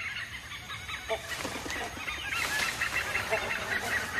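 A group of hornbills calling: many short, overlapping calls that grow denser and louder about a second in.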